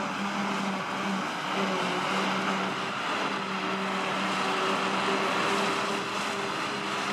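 Claas Jaguar 870 forage harvester running under load as its pickup lifts a grass swath, with a tractor engine running alongside. It makes a steady low drone over a dense machinery rush.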